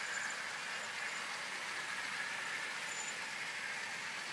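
OO gauge model train running along outdoor garden track: a steady whirring of the small electric motor and wheels on the rails.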